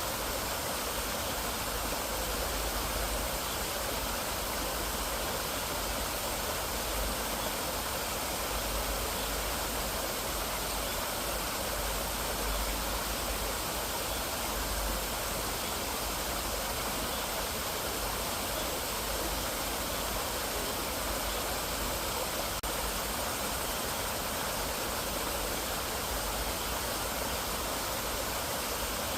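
Mountain valley stream flowing: a steady, unbroken rush of water.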